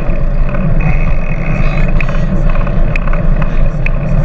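Wind rushing over the microphone of a chest-mounted camera on a moving bicycle, a steady low rumble, with light ticks about twice a second.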